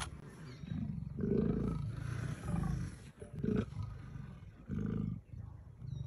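Leopards growling at each other in several low, rough bursts, loudest about a second in and again at around three and a half and five seconds.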